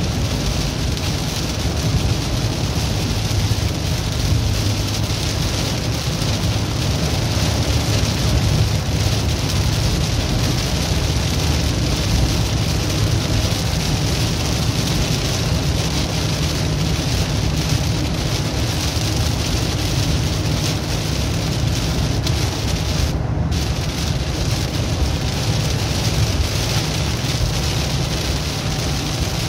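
Steady road noise inside a moving vehicle: a low engine and tyre rumble under an even hiss of wind or tyres, unbroken throughout.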